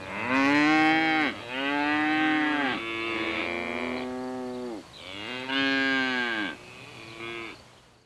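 Cattle mooing, about six drawn-out calls in quick succession, each rising and then falling in pitch. Two calls overlap in the middle, so more than one animal is calling. The last call is shorter and fainter.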